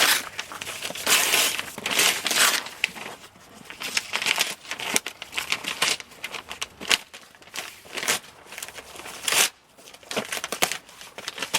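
Paper packaging being torn open and crumpled by hand: irregular rustling and tearing with sharp crackles.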